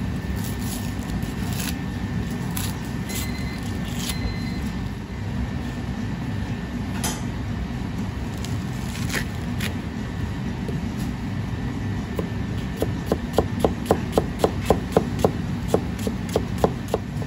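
Knife chopping an onion on a plastic cutting board: a run of quick, even taps, about four a second, begins past the middle. Before that there are only a few scattered light clicks of the knife on onion skin and board, all over a steady low background hum.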